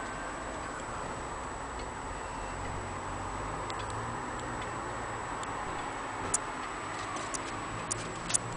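Antique longcase (grandfather) clock ticking steadily with its pendulum swinging, faint ticks about one a second.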